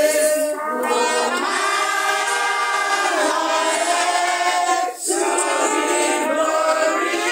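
A group of people singing together in unison, sustained sung phrases with a short break between lines about five seconds in.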